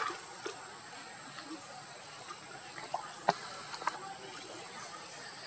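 Water splashing around a baby macaque moving in shallow muddy water: a sharp splash right at the start as it shakes its wet head, then a few smaller splashes about half a second in and between three and four seconds in, over a steady wash of water noise.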